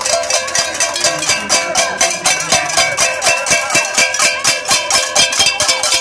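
Metal cooking pots being beaten with metal utensils in a pot-banging protest (cacerolazo): rapid, ringing metallic clanging, several strikes a second.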